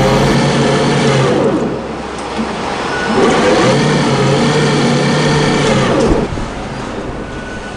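Lifeboat davit winch running on a test bed during an overload brake test: a loud mechanical whine from the drive and drum that rises and falls in pitch, dipping about two seconds in. About six seconds in it gives way to a quieter, steadier running sound.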